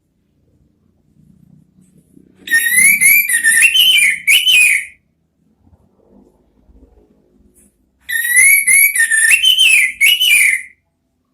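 Orange-headed thrush singing: two loud phrases of quick, warbling whistled notes that rise and fall, each about two and a half seconds long, with a pause of about three seconds between them.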